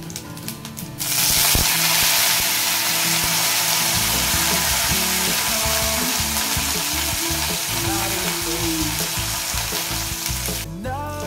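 Hot oil in an aluminium kadai sizzling loudly as curry leaves are dropped in among frying dried red chillies. The hiss bursts up about a second in, eases off a little, then drops away sharply near the end.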